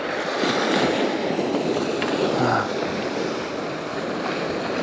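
Surf breaking and washing up the beach, a steady rushing noise.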